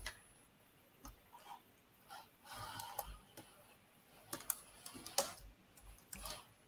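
Robot's screw-driven aluminium scissor lift extending, heard as faint, irregular clicks and light rattles from its linkage and pivots.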